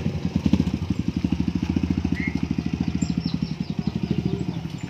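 Motorcycle engine running at low speed, its firing pulses coming in a fast, steady train, getting a little quieter near the end.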